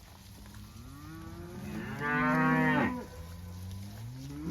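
Cattle mooing as the herd is driven: one long moo rises and swells to its loudest about two seconds in, then a second cow starts mooing near the end.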